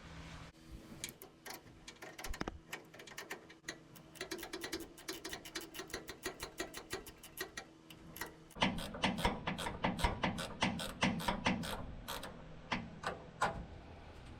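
Hand ratchet clicking in quick runs while a shock's mounting nut is tightened down to compress its rubber bushings. The clicks get louder and heavier a little past halfway.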